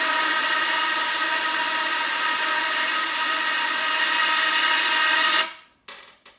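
Can of compressed-air duster spraying cold air: a loud, steady hiss with a whistling ring to it, cut off suddenly about five seconds in, followed by a few faint knocks.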